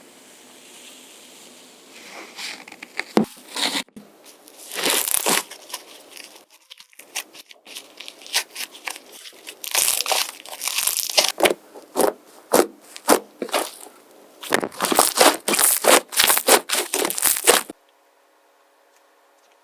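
Hands squeezing and pressing slime, making crackling, popping clicks in uneven clusters that grow denser partway through and stop abruptly near the end.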